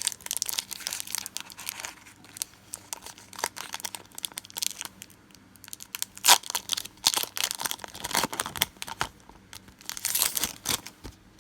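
A Pokémon XY Phantom Forces booster pack's foil wrapper is torn open and crinkled, with irregular rustling and crackling of the wrapper and a sharp snap about six seconds in.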